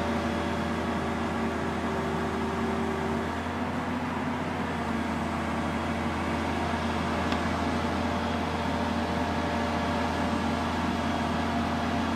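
Tracked excavator's diesel engine running steadily while it swings a felled tree trunk on a chain, with a low hum under a set of steady engine tones that shift slightly about three seconds in.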